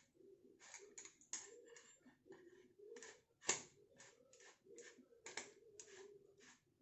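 Faint, irregular clicks and scrapes of a metal sev press (sevanazhi) as its lid is closed and screwed down over the dough, one sharper click about three and a half seconds in.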